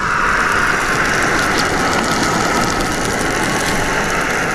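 Camping gas stoves burning with a steady hiss, and sausages sizzling and crackling in a frying pan on a remote-canister burner.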